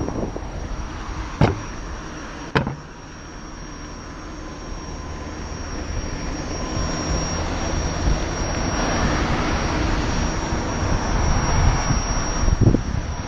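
Riding noise from a Gotway MCM4 electric unicycle: wind buffeting the camera microphone and tyre rumble on paving, growing louder in the second half. Two sharp knocks about one and a half and two and a half seconds in, with a thin steady high whine underneath.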